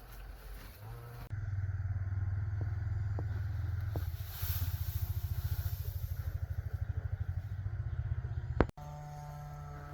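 A small engine running with a low, fast, even throb, starting about a second in and cutting off abruptly near the end.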